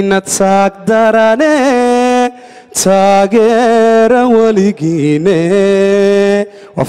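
A man singing solo and unaccompanied into a microphone, holding long notes with wavering, ornamented turns. He breaks off briefly about two and a half seconds in, then carries on.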